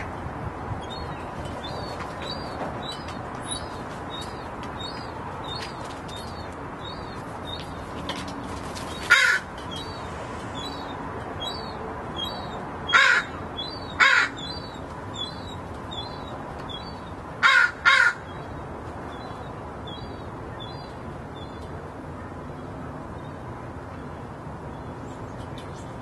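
Crows cawing: five loud, harsh caws, a single one about nine seconds in, then two close together a few seconds later and a final pair. Behind them runs a series of faint, high chirps that repeat about twice a second and fade out shortly before the end.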